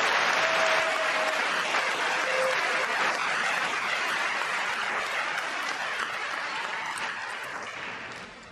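Arena crowd applauding after a point is won, loud at first and slowly fading, dying away near the end.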